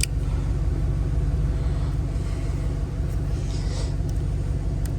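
A vehicle engine running with a steady low rumble, with a single sharp click right at the start.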